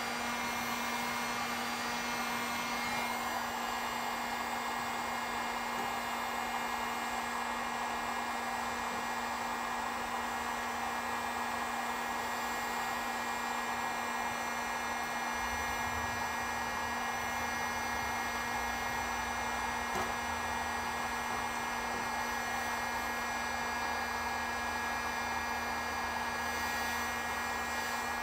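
Electric heat gun running steadily: a constant fan-and-air rush with a steady electrical hum. It is blowing hot air onto old vinyl decals to soften their adhesive so they can be peeled off the sheet metal.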